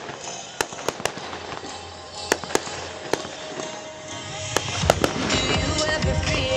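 Fireworks display: aerial shells bursting in a rapid, irregular run of sharp bangs and cracks, getting louder and denser from about four and a half seconds in.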